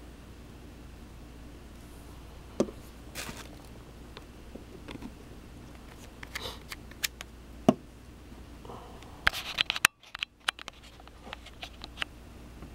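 Scattered small clicks and scrapes of handling, the acid bottle and the camera being moved, with a cluster of them near the end, over a low steady hum.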